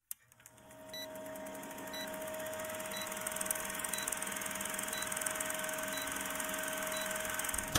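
Old film-countdown leader sound effect: a film projector running with a steady whir, fine clatter and hiss, and a short high beep once a second.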